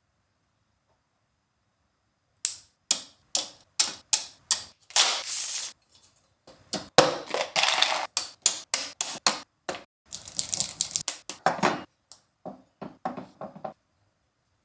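Mechanical keyboard parts being handled and fitted: irregular sharp clicks and clacks at about two to three a second, starting about two and a half seconds in, with a few longer rustling stretches among them.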